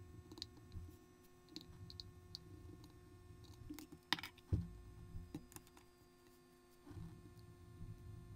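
Faint small clicks and wet squishes of a metal spoon pressing and smoothing wet, clay-like Zokei-kun modelling soil in a clear plastic case. A sharper click and a knock come about four seconds in.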